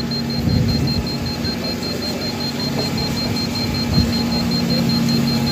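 Handheld electromagnetic radiation tester sounding its alarm: a high-pitched beep repeating rapidly and without a break over a low steady hum. The alarm signals a reading above the meter's threshold, which the user takes for harmful radiation.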